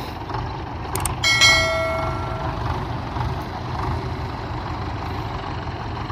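Belarus tractors' diesel engines idling with a steady low rumble. About a second in, a sharp metal clank rings briefly before fading.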